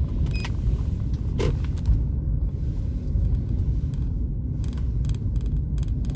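Low steady rumble inside the cabin of a moving Hyundai Grand i10, with a few light clicks, several near the end, from the phone clamp rattling.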